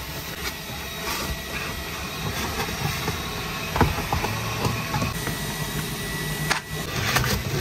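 Self-service car wash vacuum running, a steady rush of suction through the hose as the nozzle is worked over the car's carpet and seat fabric, with a few small knocks of the nozzle.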